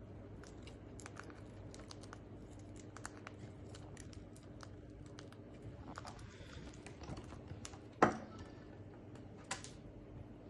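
Irregular light clicks and taps, with one louder knock about eight seconds in, over a steady low hum.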